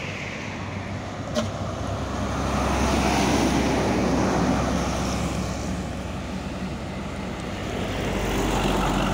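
A heavy diesel truck pulling a tarpaulin-covered flatbed trailer passes close by, its engine and tyre noise swelling to a peak about three seconds in and then easing off. Traffic noise swells again near the end, with a short click about a second and a half in.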